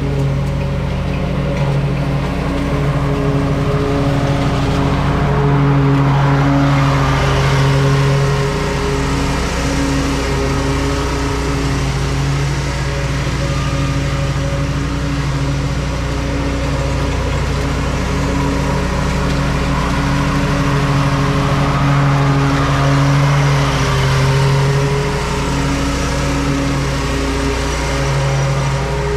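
Lawn mower engine running steadily under load while cutting grass, its hum swelling and easing slightly a couple of times.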